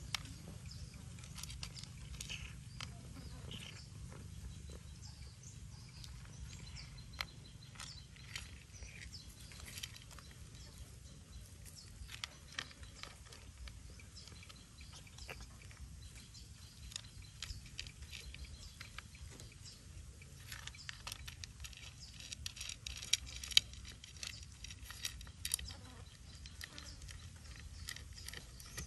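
Cat crunching dry kibble, a long run of small irregular crunches and clicks over a low steady rumble.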